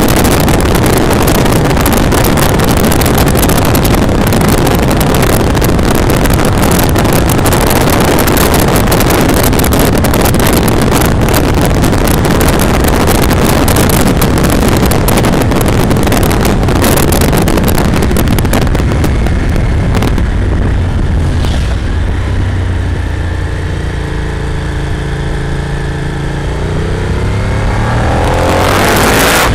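Wind rushing over the microphone of a camera on a moving Moto Morini motorcycle, loud and steady. About two-thirds of the way in the wind eases and the bike's V-twin engine note comes through, and the wind rises again near the end.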